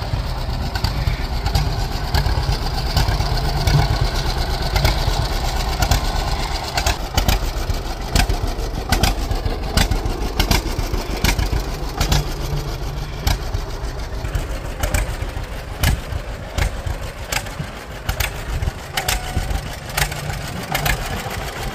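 1940 John Deere B's two-cylinder engine running as the tractor drives in reverse and makes braking turns, its exhaust giving a steady train of sharp, even beats.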